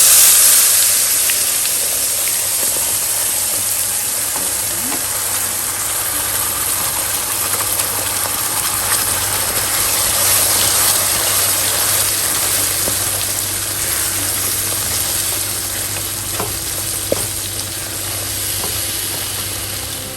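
Wet ground onion, tomato and ginger-garlic paste hitting hot oil in a pan and sizzling loudly; the frying starts suddenly and slowly eases off, with a couple of light clicks near the end.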